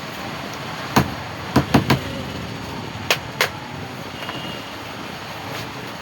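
Six sharp knocks in irregular groups: one, then three close together, then two, over steady background noise.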